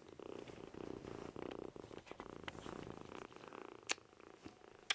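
A kitten purring steadily, with two sharp clicks near the end.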